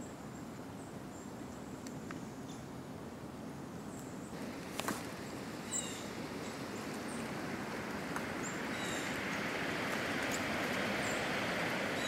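Outdoor ambience: a steady rushing hiss that grows louder over the last few seconds, with scattered short, high wild-bird chirps and a sharp click about five seconds in.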